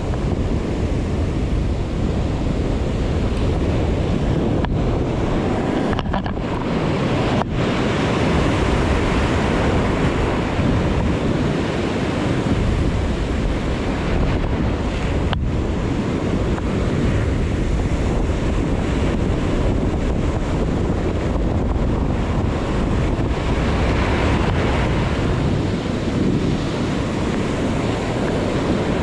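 Heavy surf from a strong swell breaking steadily against a rocky shore, with wind buffeting the microphone.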